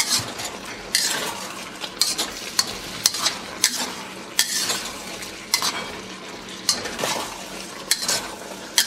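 Rice cake, beef and vegetable stir fry sizzling in a hot wok, with a metal spatula scraping and knocking against the wok as the food is tossed, about once or twice a second.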